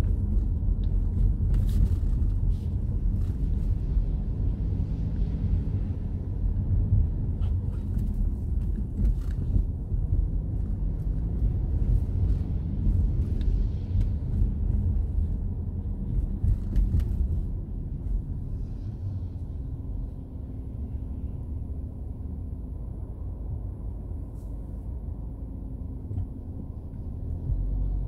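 Road noise inside a car's cabin on a wet street: a steady low rumble of engine and tyres, with the hiss of tyres on the wet road swelling twice and a few light clicks. It gets quieter about two-thirds of the way through as the car slows in traffic.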